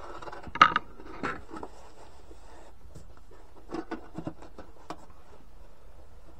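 Scattered knocks and scrapes as a black plastic tunnel rat trap is pushed into place on the ground among leaning wooden tool handles. The sharpest knock comes about half a second in, and a quick cluster of knocks comes around four seconds in.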